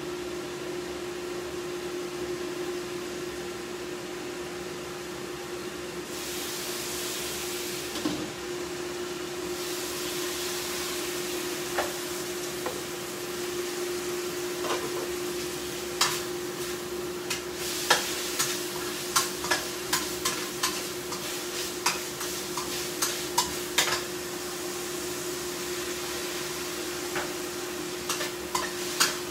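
Food frying in a pan with a steady sizzle, hissing louder for a few seconds about six seconds in. From about halfway on, a spatula stirs the food with many sharp clicks and scrapes against the pan. A steady hum runs underneath.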